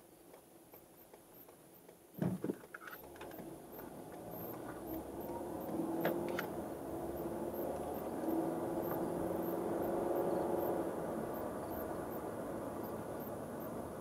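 A car pulling away from a stop and gathering speed, heard from inside the cabin: a couple of sharp knocks about two seconds in, then engine hum and tyre noise on a rough country road building up and holding steady.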